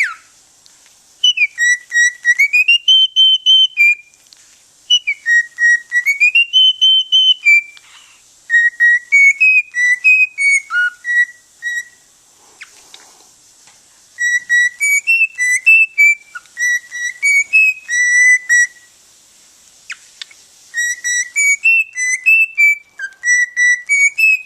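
Cockatiel whistling a tune in five phrases of short notes that rise and fall in pitch, with brief pauses between the phrases.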